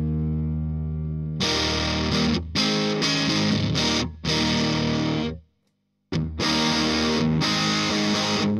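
Electric guitar played through a freshly repaired MXR Fet Driver overdrive pedal, switched on and giving distorted tone. A held chord rings out, then chords are strummed in short phrases with brief stops, and a full half-second pause about five and a half seconds in before the playing resumes.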